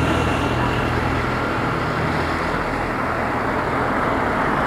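Steady road traffic noise: the even hum and hiss of vehicle engines and tyres on the road, without pause.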